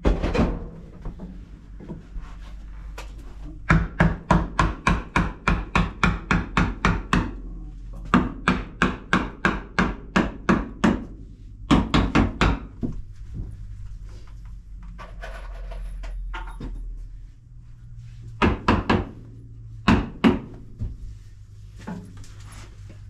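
Hammer driving nails into wooden floor blocking between joists: two long runs of quick, even blows, about three to four a second, then a few short bursts of strikes later on.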